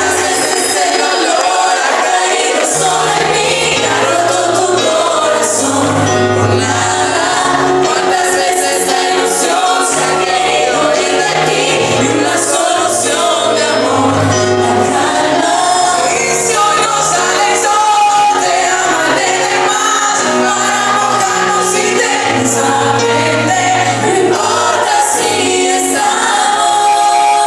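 Live pop song played loud: several voices singing a melody together over a band, with a bass line moving note by note under it.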